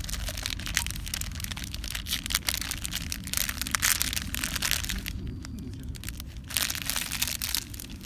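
Clear plastic bag crinkling as a cup is pulled out of it by hand, pausing for about a second and a half past the middle before a last short crinkle.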